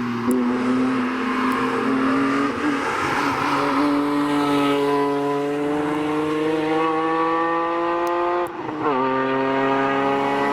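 BMW M3 E46 engine pulling hard under full throttle, its pitch climbing steadily through a long gear, then an upshift near the end drops the revs sharply before they climb again.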